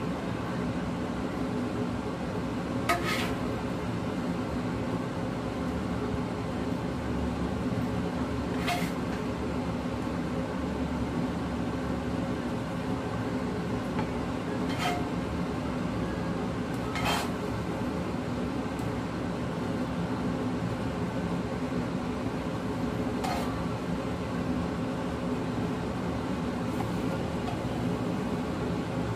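A spatula clinks against a ceramic plate about five times, spread out, as food is served onto it. A steady hum runs underneath.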